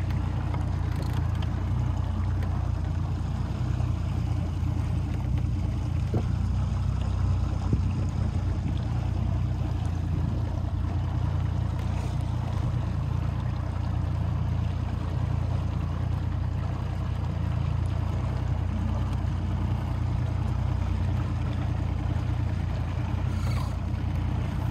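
Boat motor running steadily under way, a low hum with water rushing and gurgling along the hull.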